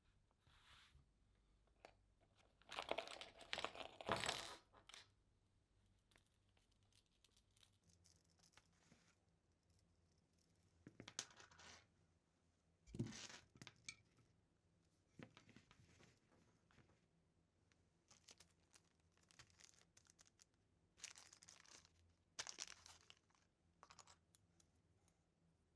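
Faint, scattered handling noises during an unboxing: short rustles, scrapes and light clinks of packaging and parts being moved, with the loudest bursts about three to four seconds in.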